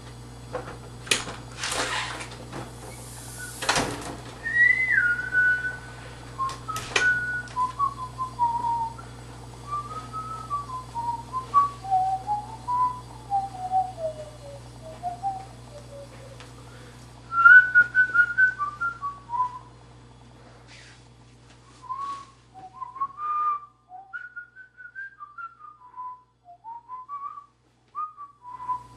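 A person whistling a wandering tune. A few sharp clicks and knocks come in the first few seconds, then the whistling starts.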